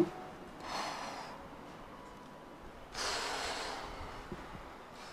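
A brief thump right at the start, then a person breathing out heavily close to the microphone twice, about a second in and again about three seconds in.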